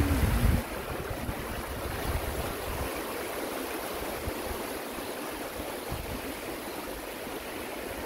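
Stream water rushing steadily over a low stone weir. A low rumble under it stops about half a second in.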